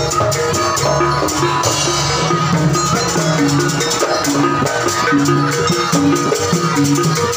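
Jaranan gamelan music played live: drums with short repeating metallophone notes in a steady cycle, and a shaking rattle on top.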